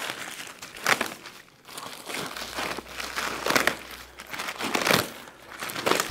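Plastic wrapper of a bundle of asphalt shingles crinkling and tearing as it is ripped open by hand: steady rustling with several louder rips.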